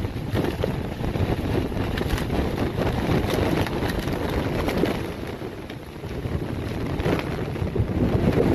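Hurricane-force wind buffeting the microphone, a low rumbling noise that swells and eases in gusts, over rough storm-driven water churning against a seawall.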